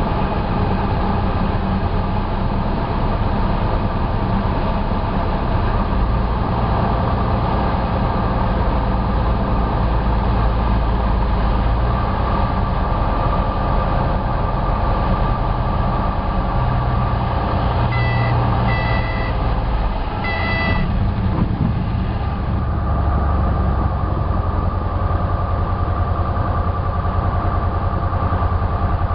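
Cessna 172's single piston engine droning steadily in flight. Three short beeps sound about two-thirds of the way through.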